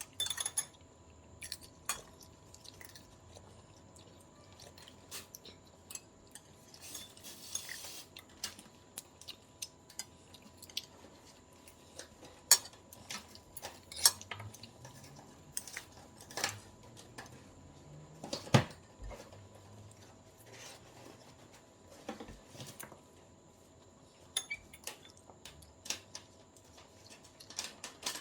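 Utensils tapping and clinking against a dish while sushi is eaten, in scattered irregular clicks with a few sharper, louder knocks.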